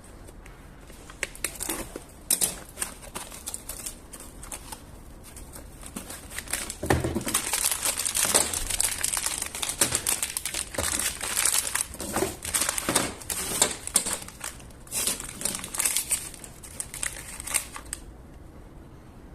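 Packaging crumpling and crinkling as it is opened and pulled off, in irregular rustling bursts with small clicks. It is sparse at first, busiest through the middle, and stops shortly before the end.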